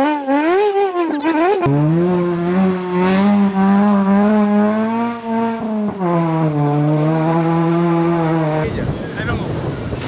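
Rally car engine revved hard: the revs bob up and down at first, then are held high and steady for several seconds with a brief dip in the middle, as the car tries to drive out of the roadside ditch. Near the end this gives way to a rushing noise of tyres on the loose road surface.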